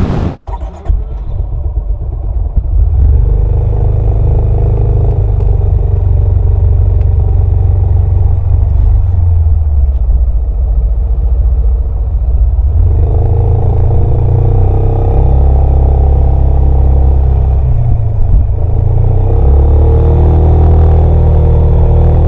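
Yamaha XMAX 300 scooter's single-cylinder engine and exhaust running under way, picked up from under the seat. It is a steady low drone that shifts pitch about halfway through and climbs near the end as the scooter speeds up. There is a brief dropout just after the start.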